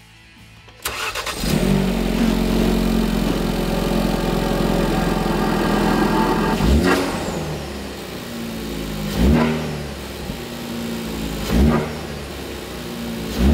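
Ford Focus RS's turbocharged 2.3-litre EcoBoost four-cylinder, breathing through a Mishimoto cold air intake, starting about a second in and running at a fast idle. Past the middle the idle settles lower and the engine is revved three times in quick blips, about two and a half seconds apart.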